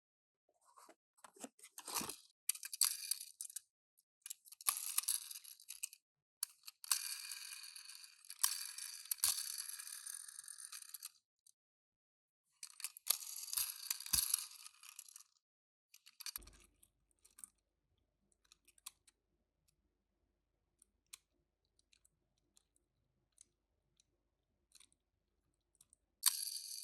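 Crinkling and rustling of toy packaging being handled and opened, in several bursts a few seconds long, followed by scattered small clicks and taps in the second half.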